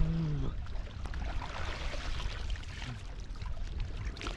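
Water splashing and sloshing around a person swimming and wading in shallow river water, a steady churning noise. A short held voice sound trails off right at the start.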